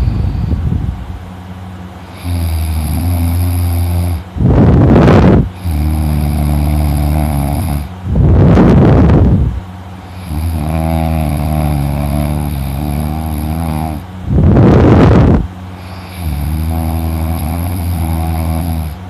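A man snoring crazy loud, a low buzzing snore drawn out for a few seconds, four times. Between snores come shorter, louder rushes of heavy breath blown straight into the microphone.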